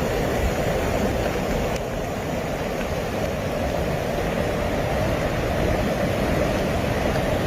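Steady rushing of fast-flowing floodwater, with a deep rumble underneath.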